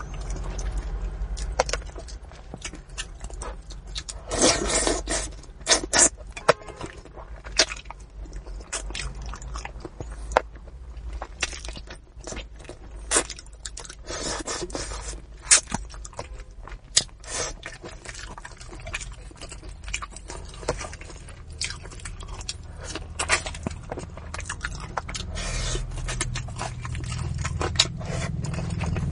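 Close-up eating of braised fish: irregular chewing, biting and mouth clicks, with a few louder smacks, over a low steady hum.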